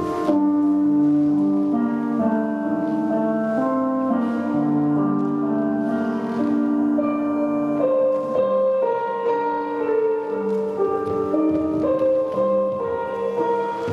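Instrumental music with slow, sustained, layered notes accompanying the dance.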